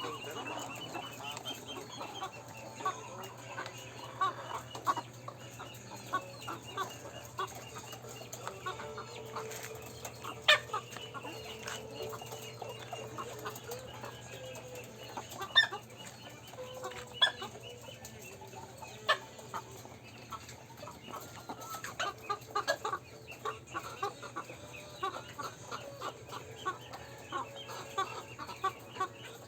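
Chicken clucking and making short hiccup-like calls over and over, with a few sharper, louder calls standing out now and then.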